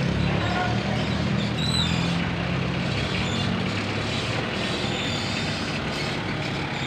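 Street traffic: a motor vehicle engine running steadily with a low hum that fades about three and a half seconds in, over a steady rumble of road noise.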